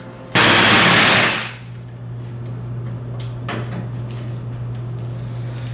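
A cordless power tool cutting through steel shock mounts on a go-kart frame: a loud, harsh burst of cutting noise that starts suddenly about a third of a second in and dies away after about a second. A steady low hum and faint clanks follow.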